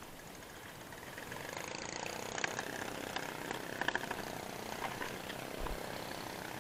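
Motorized outrigger fishing boat under way: its engine running and water rushing along the hull, growing louder about a second in. A few sharp clicks and knocks come in the middle.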